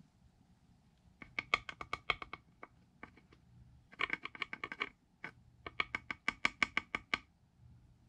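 Rapid clicking, about ten sharp clicks a second, in three bursts of one to one and a half seconds each, with a few single clicks between them.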